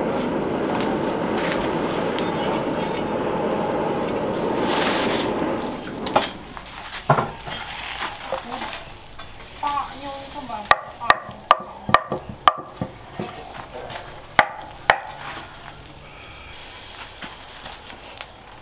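Charcoal forge fire with a steady rushing noise for about the first six seconds. Then comes the hiss and sizzle of a hot steel cleaver blade being quenched, giving off steam, with a run of sharp taps between.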